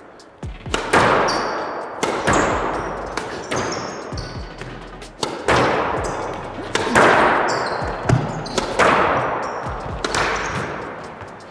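Squash rally: the ball struck by racquets and hitting the court walls and floor, sharp hits about a second apart, each ringing on in the enclosed court. Short high squeaks of sneakers on the wooden floor come between the hits.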